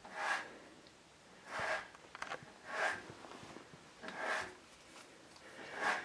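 Heavy breathing close to the microphone: soft noisy breaths at an uneven pace, about one every second and a half.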